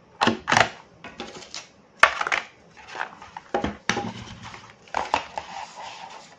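Hands handling cardboard phone packaging and paper inserts: irregular rustling, scraping and crinkling, with light knocks of cardboard and a plastic charger. The sharpest knock comes about two seconds in.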